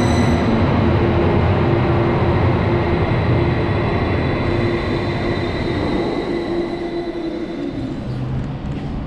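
Volgograd Metrotram light-rail tram running through an underground station: a rumble of wheels on rail with a steady electric whine, growing gradually quieter.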